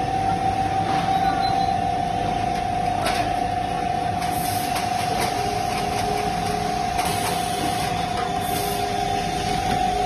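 Bakery production-line machinery running: a steady whine holding one high pitch over a rushing noise, with a faint click about three seconds in.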